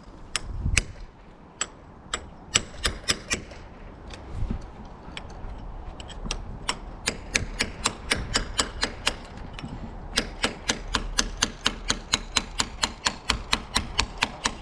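A run of sharp clicks or taps, scattered at first, then an even, rapid series of about four to five a second from about two-thirds of the way in.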